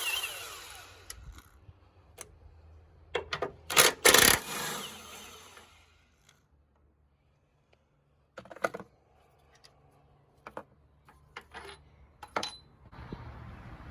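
Hand tools clinking and knocking against metal during suspension-free engine mount work: a few sharp metallic clanks about three to four seconds in, then scattered light clicks and ticks.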